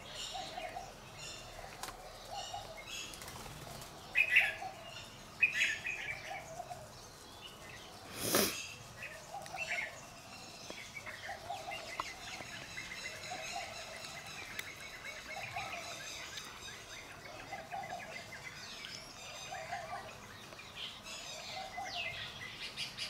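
Outdoor birdsong. One bird repeats a low call about every second and a half throughout, over loud, sharp high chirps and later a thin twittering. A brief, loud rush of noise comes about a third of the way in.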